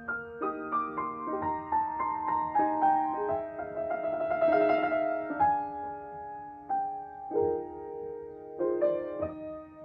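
Grand piano played solo: a classical piece of melody over chords, with notes struck and left to ring, growing fuller and louder about halfway through and thinning to quieter held notes afterwards.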